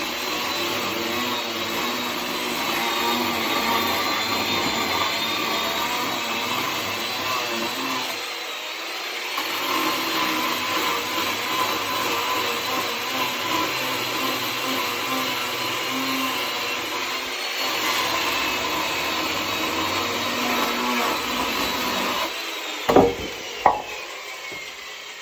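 Chainsaw cutting through firewood logs, its motor whine dipping briefly twice as the load changes. Near the end come two sharp knocks, and the whine falls away as the saw winds down.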